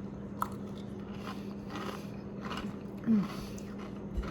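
A person chewing a crunchy mouthful of granola and honey roasted walnuts from a smoothie bowl, with several separate crunches. A short, low, falling hum comes about three seconds in.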